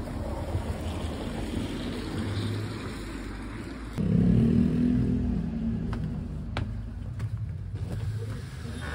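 Outdoor street noise: a steady low rumble of traffic with wind on the microphone. It gets louder about four seconds in, and a few sharp clicks come near the end.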